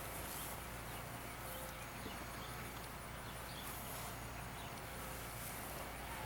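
Outdoor ambience: insects chirping over a steady low hum.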